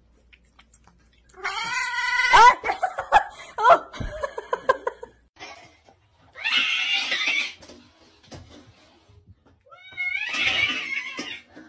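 A cat yowling in long wavering cries, then hissing in two harsh bursts a few seconds apart, a defensive display at what it takes for another cat in the mirror.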